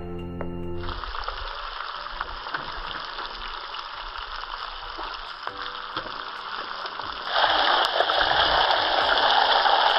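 Hot oil sizzling steadily as masala-coated fish pieces fry in a pan over a wood fire. It grows louder about seven seconds in. Background music ends within the first second.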